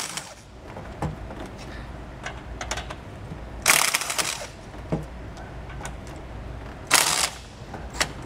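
Milwaukee cordless impact wrench with a 19 mm socket hammering on trailer leaf-spring U-bolt nuts to loosen them, in two short bursts, about four seconds in and again near seven seconds. Light clicks and knocks of the tool and socket come in between.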